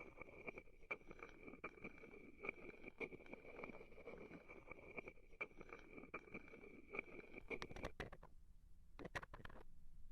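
Wooden ball and wooden spoon rubbing and scraping against a microphone up close: a dense grinding scrape full of small clicks, thinning to scattered separate scrapes and taps near the end.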